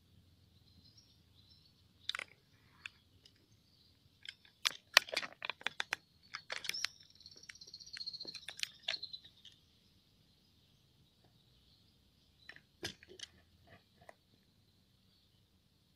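Crickets chirping in a steady, unbroken high-pitched trill, with runs of sharp clicks and knocks from the phone on its tripod being moved, thickest from about four to nine seconds in and again around thirteen seconds.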